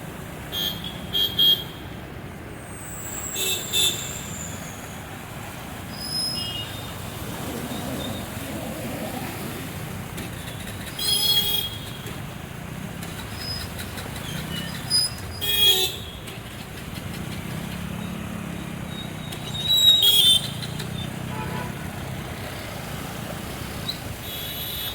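Road traffic running steadily, with vehicle horns honking in short blasts several times, the loudest about two-thirds of the way through.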